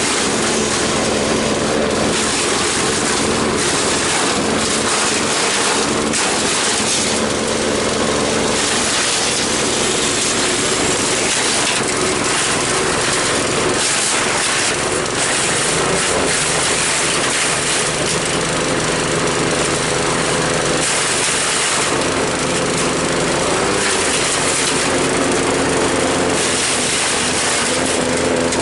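Engine-driven patchouli leaf chopper running and shredding leaves: a small engine's steady note, whose pitch shifts several times, over a continuous hiss of cutting.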